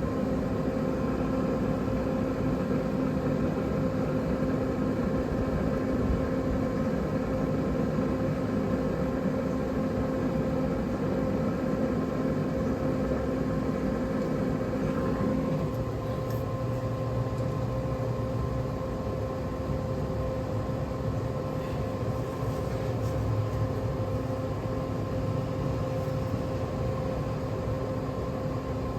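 Traeger Scout portable pellet grill running, its fan and motor giving a steady electric hum. About halfway through, the lower part of the hum drops away as one of the grill's parts cycles off while it regulates its temperature.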